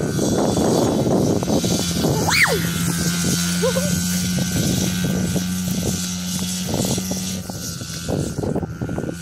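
Dirt bike engine running at a steady pitch in the distance, with a brief rising-and-falling squeal about two seconds in.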